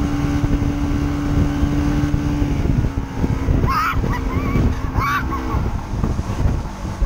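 Rebuilt Mercury 115 outboard running steadily at speed while towing, under heavy wind buffeting on the microphone and rushing wake water. Two brief high cries come about halfway through.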